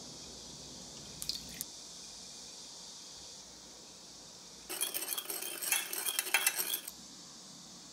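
Metal measuring spoon stirring sauce in a small glass bowl, clinking quickly and repeatedly against the glass for about two seconds in the second half. Two light clicks come about a second in.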